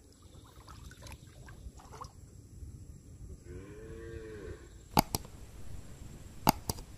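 A cow moos once, a short arching call about three and a half seconds in. Later come four sharp knocks against the steel bowl as fish are handled in it; these are the loudest sounds, in two pairs about a second and a half apart.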